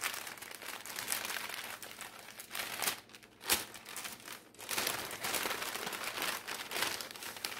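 Brown kraft-paper packet crinkling and rustling as it is torn open and unwrapped by hand, in uneven surges with a few sharper crackles.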